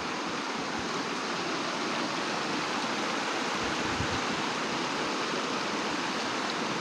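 Floodwater rushing and splashing in a steady flow, like a stream.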